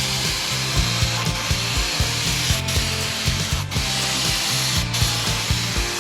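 Background music with a steady beat and a moving bass line over a dense, hissy high end.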